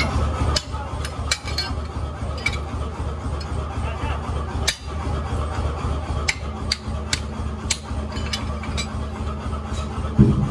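Hand hammers striking leaf-spring steel knife blanks on a steel anvil block: about a dozen sharp, irregularly spaced metallic blows, over a steady low hum.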